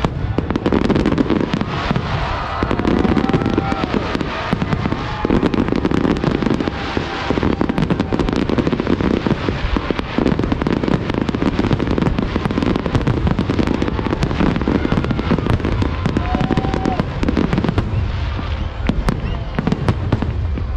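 Large aerial fireworks display bursting without a break: a dense run of bangs and crackles over heavy low booms of the shells.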